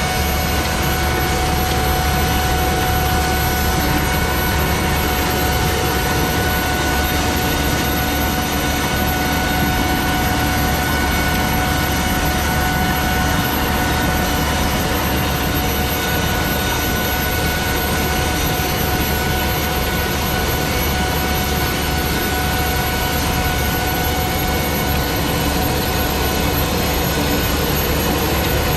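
Rover 1S60 gas turbine running steadily under load, a continuous whine over a jet-like rush, as it powers a homemade garden tractor pulling a rototiller through soil.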